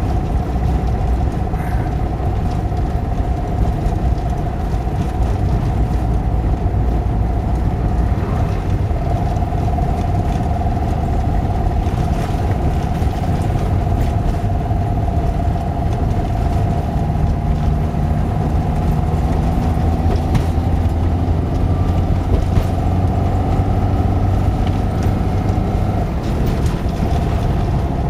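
1989 Talbot Express 2-litre petrol engine pulling a motorhome under gentle acceleration, with a metallic, hollow knocking that is at its worst on light throttle. Road noise runs underneath.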